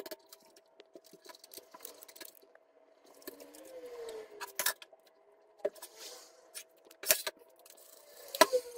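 Handling and wiping a steel computer-case side panel: scattered light clicks and scrapes, with three sharper knocks, about halfway, about seven seconds in and near the end, over a faint steady hum.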